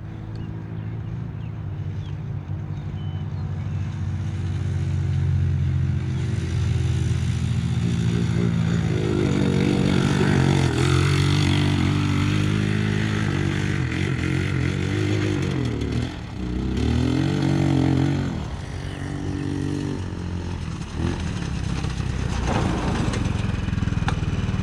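Joyner Dirt Devil go-kart's 250cc water-cooled four-stroke engine driving through its CVT as the kart is driven about. Its pitch rises and falls several times as it accelerates and backs off, and the sound drops briefly twice past the middle.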